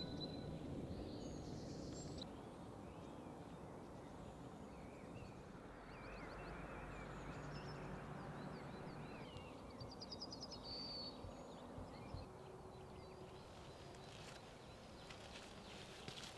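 Faint outdoor ambience: wild songbirds chirping now and then over a low steady background rush, with a quick trill about ten seconds in.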